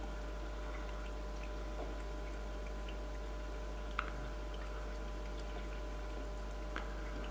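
Aquarium background: a steady low hum with faint water drips and ticks, a sharp click about four seconds in and a smaller one near the end.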